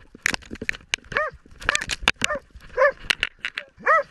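Hunting dog giving several short, sharp barks at irregular intervals, mixed with quick clicks and scrapes of brush and twigs against the dog-worn camera.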